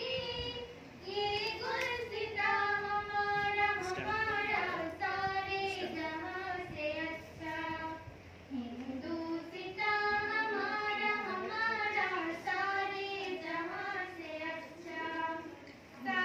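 A girl singing a song, with long held notes and short breaks about a second in and about halfway through.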